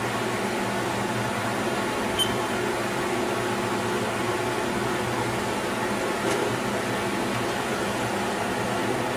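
Steady electrical and mechanical hum of a powered-up Haas MiniMill CNC milling machine standing idle, with a single brief click about two seconds in.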